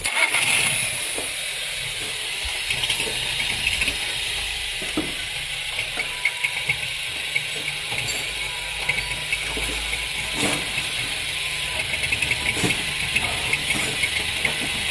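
Volkswagen Sagitar engine running, with irregular light ticks and clicks over a steady hiss. This is the abnormal engine noise that the uploader ties to a misfire and the crankshaft position sensor.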